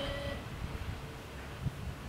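A steady whine from the level crossing as its barriers finish rising cuts off about a third of a second in. After that, wind rumbles on the microphone with a few soft thumps.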